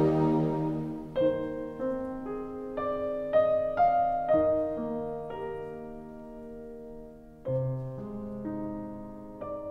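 Background music: a slow, gentle piano melody of single notes, each ringing and fading, after a held chord dies away in the first second. A new phrase starts over a low chord near the end.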